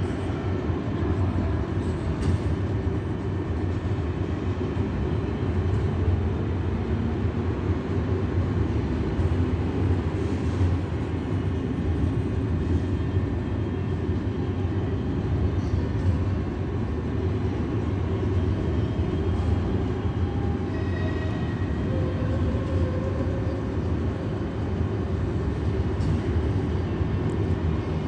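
KZ4AC electric locomotive running with a passenger train: a steady, even low rumble of the train on the move, with no sudden knocks or changes.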